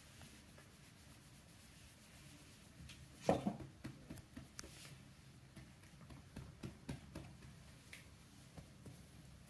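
Soft rubbing of a hand massaging a cat's fur, with a louder bump about three seconds in and a scatter of small clicks and brushes after it.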